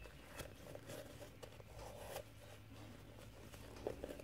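Faint scuffing and rubbing of a rag wiped around the inside of a motorcycle crankcase, with a few light clicks.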